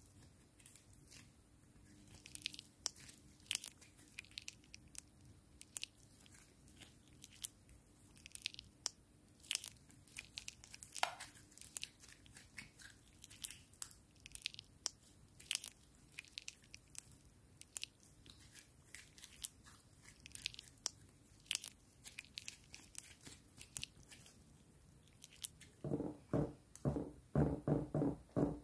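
Hands stretching and squeezing pink butter slime: an irregular scatter of small sticky clicks and pops. Near the end comes a quick run of louder, deeper squishes as the slime is pressed down.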